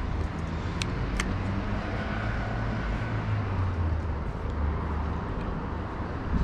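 Steady low rumble of road traffic, with two short sharp clicks about a second in and a thump at the very end.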